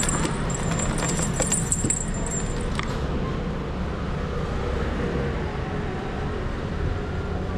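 Motorcycle running at low speed, a steady rumble, with a few light clicks and knocks in the first three seconds.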